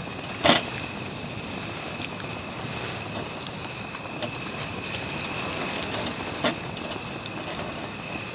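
Steady rain and wind noise, with a few sharp taps on top: the loudest about half a second in, another at about six and a half seconds.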